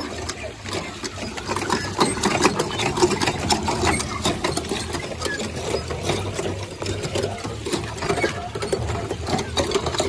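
Hand-operated water pumps of a rubber-duck race being worked fast, a dense, uneven clatter of clicks and clacks from the pump handles.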